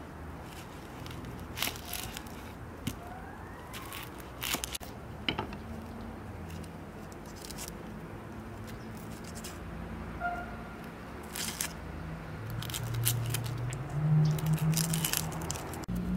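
Dry onion skin crackling and tearing as an onion is peeled by hand, heard as scattered sharp crackles that come thickest near the end, over a low steady drone.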